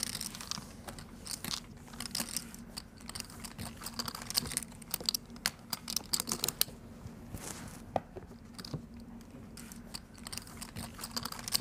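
Poker chips clicking as a player handles and shuffles them at the table: an irregular run of small, sharp clicks over a faint steady hum.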